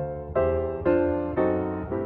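Background music: piano chords struck about every half second, each ringing and fading before the next.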